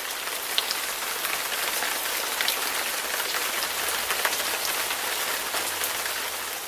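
Steady rain falling, an even hiss sprinkled with many small drop ticks.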